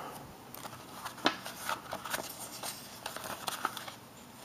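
Paper rustling as a printed manual and flyers are handled over a cardboard box, with scattered soft clicks and rustles.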